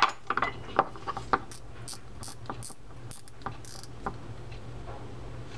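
Shimano Trinidad 12A fishing reel handled and turned by hand while the handle's cap nut is threaded on, giving a run of small metal clicks and ratcheting. The clicks are sharper in the first second and a half, then lighter and higher until nearly four seconds in.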